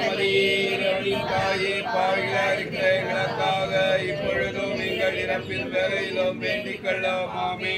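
A congregation of many voices reciting a Tamil rosary prayer together in a chant-like unison, the voices overlapping into one continuous body of sound.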